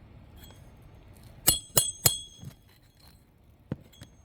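Roofer's hatchet driving a roofing nail into a replacement 3-tab shingle: three quick, ringing metal strikes about a second and a half in, then a light tap near the end.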